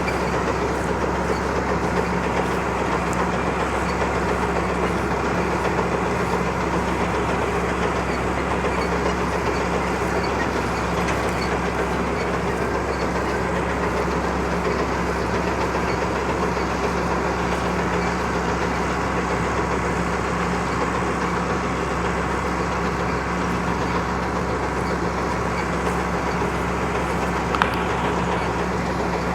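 Farm tractor's diesel engine running steadily while working hay, a constant low drone with a single sharp knock near the end.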